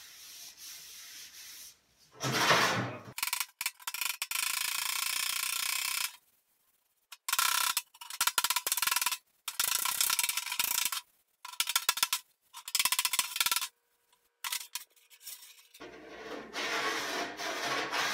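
Body hammer striking the bare steel front fender of a 1960 Pontiac against a dolly in quick runs of light blows, the sheet metal ringing, to work out a low spot and crease. At the start and near the end a hand rubs over the bare metal, feeling for high and low spots.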